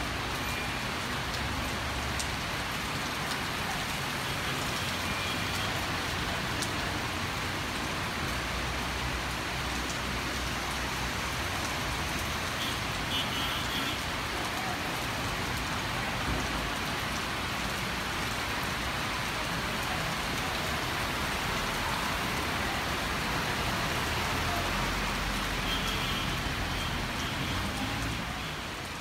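Heavy rain falling steadily, an even hiss that fades out near the end.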